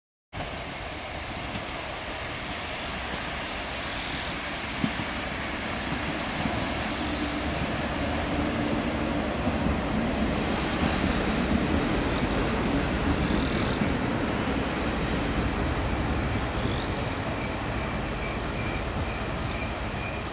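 Nagara-3 diesel railcars being towed past at close range, their wheels rumbling steadily over the rails with short high squeals now and then. The sound grows louder about six seconds in and eases near the end.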